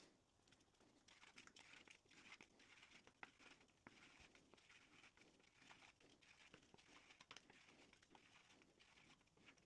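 Near silence, with a few faint, scattered light clicks and taps.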